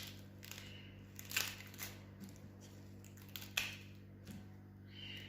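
Dry outer skin of a red onion crackling and tearing as it is peeled, a few short papery crackles.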